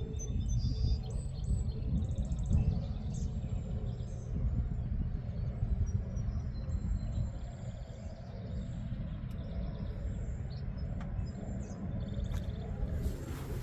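Outdoor ambience: small birds chirping repeatedly over a steady low rumble.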